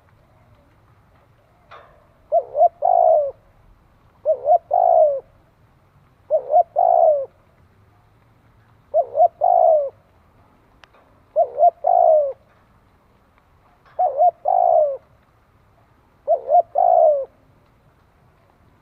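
Spotted dove cooing in a steady series of seven calls, one about every two and a half seconds. Each call is two short coos followed by a longer coo that falls at its end.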